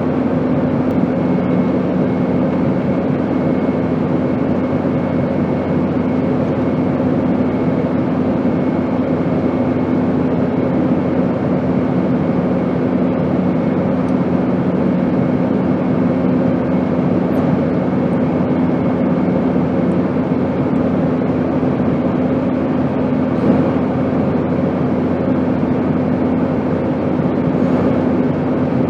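Steady airplane noise: an even rushing drone with a constant low hum, used as white noise. A second, lower hum tone drops out about two-thirds of the way through.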